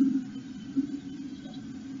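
Blue tit shifting about in its moss nest cup inside a nest box, giving two soft bumps, at the start and just under a second in, over a steady low hum.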